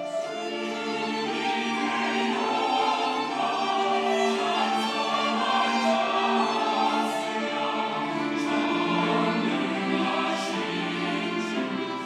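Mixed church choir of women's and men's voices singing a sacred anthem in held, full chords, the lower voices coming in more strongly about eight seconds in.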